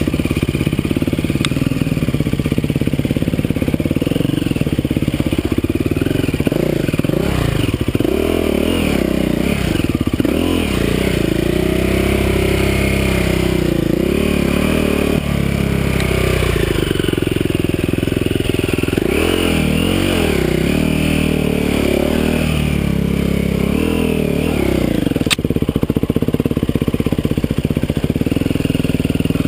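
Dirt bike engine revving up and down constantly as the throttle is opened and closed on a rough, steep trail.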